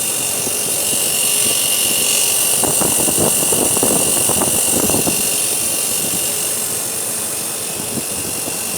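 Embraco NEK2172 freezer compressor running with a grinding mechanical noise, like the pistons grinding against the sleeves, with irregular knocks strongest in the middle. It is the sign of a failing compressor, its suction pipe warmer than its discharge pipe.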